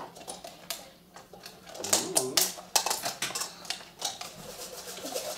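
Irregular clicks and taps of plastic milk bottles and craft tools being handled on tables, with a brief faint voice about two seconds in.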